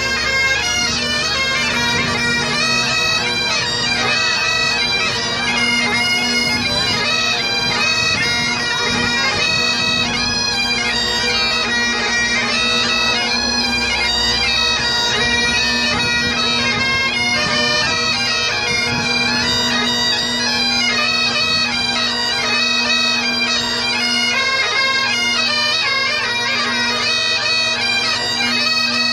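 Highland bagpipes playing a tune over their steady drone.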